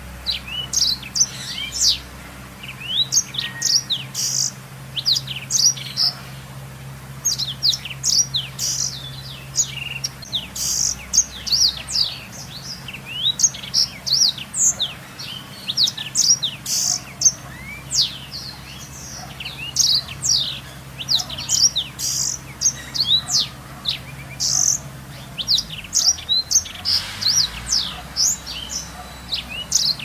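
Blackthroat (black-throated canary) singing a long, unbroken song of rapid, high sweeping chirps and trills, over a faint low hum.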